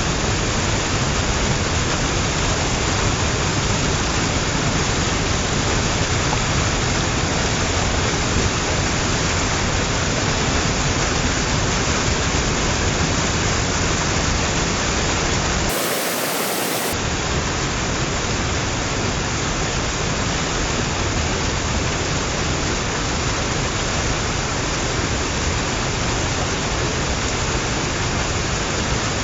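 A small waterfall running, water falling and splashing in a steady, even rush. The deep part of the sound drops out for about a second a little past halfway.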